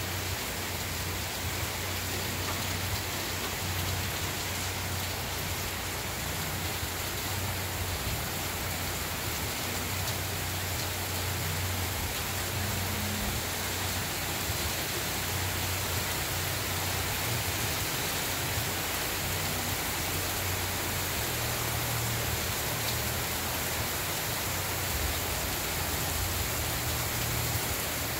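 Heavy rain pouring steadily onto pavement and lawns: a constant, even hiss.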